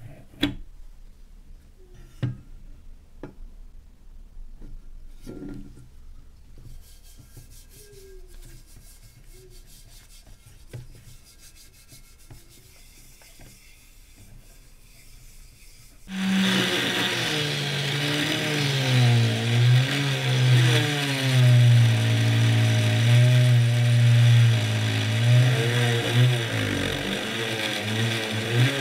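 Soft taps and rubbing as the brass lamp part, smeared with polishing compound, is handled. Then about halfway through, a rotary tool with a felt polishing wheel starts running loudly, its motor pitch wavering up and down as the brass is worked against the wheel.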